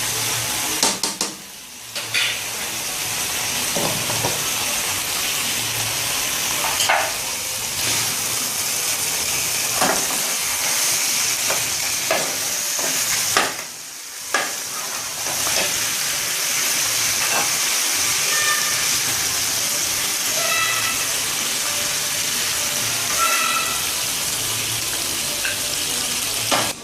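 Food frying in hot oil in a pan, a steady sizzle with clicks and scrapes of a utensil stirring. The sizzle drops away briefly twice, about a second and a half in and again about fourteen seconds in.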